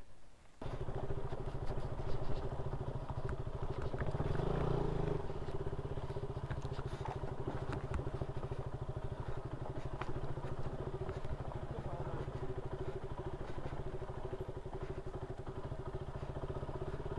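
KTM Duke 200's single-cylinder engine running at steady, even revs as the bike picks its way down a loose rocky dirt track, cutting in abruptly just under a second in. A few sharp knocks of the bike jolting over stones.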